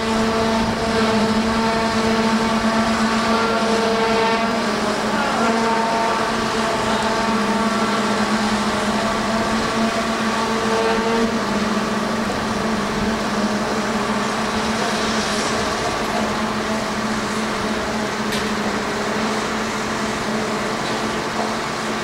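Large Tadano mobile crane running at work: a steady engine and hydraulic drone with an even pitch that shifts slightly a few seconds in.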